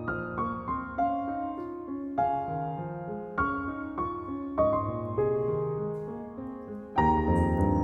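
Background piano music: a slow melody of single notes over held chords, swelling louder and fuller about seven seconds in.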